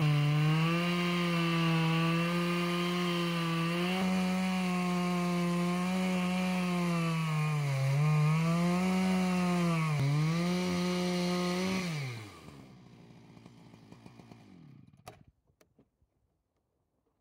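Two-stroke chainsaw on a chainsaw mill, running at high revs as it rips lengthwise through a cedar log. Its note sags twice as the chain loads up in the cut, then the revs fall away and the saw stops about twelve seconds in, at the end of the cut.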